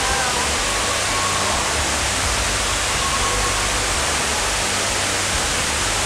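Steady rushing of falling water from an indoor waterfall, an even hiss at a constant level, with faint distant voices now and then.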